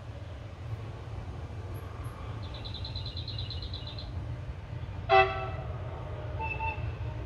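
Class 746 locomotive hauling a freight train of open wagons, with the steady low rumble of the running train. About five seconds in comes one short horn blast, the loudest sound, and a fainter short toot follows a second or so later.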